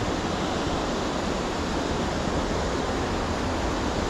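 Steady rushing of waterfalls and rapids pouring over big boulders, an even roar of water with no change.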